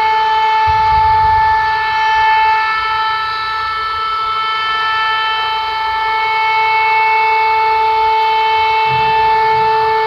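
Tornado siren sounding one steady, unwavering tone with many overtones. Low rumbles come in about a second in and again near the end.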